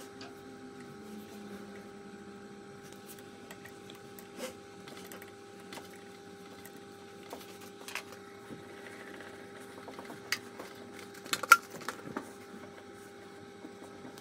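Scattered light metal clicks and taps from a hex key and spanner working on a mini lathe's compound slide as its angle is reset, over a faint steady hum. One sharper clink comes past the middle.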